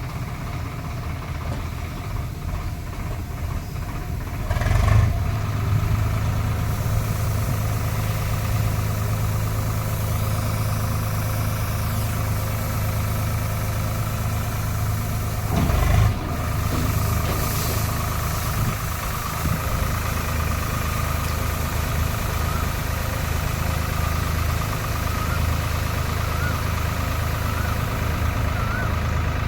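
Combine harvester's engine running steadily at a low, even pitch. Two brief louder bumps come about five and sixteen seconds in.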